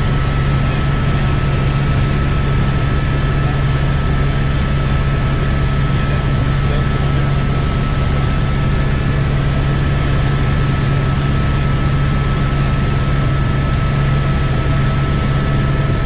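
Helicopter cabin noise in level flight: the steady low drone of the rotor and engine, with a thin steady whine above it, heard from inside the cockpit.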